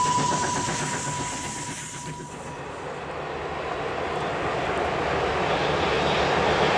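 Double-headed SBB C 5/6 steam locomotives working a train: the exhaust beats and a steady high whine fade as they pull away and die out about two seconds in. Then comes the steady rumble of a train in the distance, growing slowly louder.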